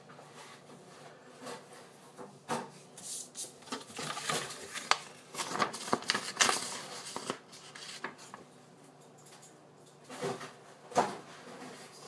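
Irregular rustling and scraping with sharp clicks, busiest in the middle stretch and again briefly near the end: handling noise close to the microphone, such as paper and fabric being moved.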